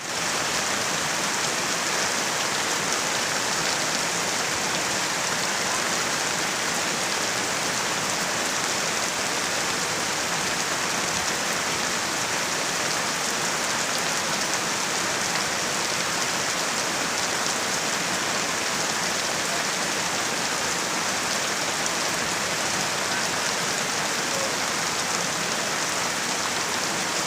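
Steady heavy rain falling, an even hiss of drops on surfaces that does not let up.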